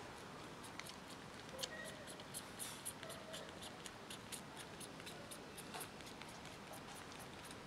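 Grown kitten suckling at its mother cat's teat: faint, irregular wet clicks and smacks, several a second.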